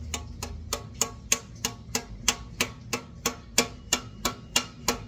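Knife slicing a red pimento pepper against a cutting board, a steady chop about three times a second.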